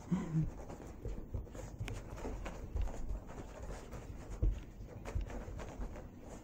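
Yorkshire terrier rolling and rubbing itself along a rug after a bath: irregular scuffing and scratching of damp fur and paws on the carpet, with a few soft thumps, the loudest about four seconds in.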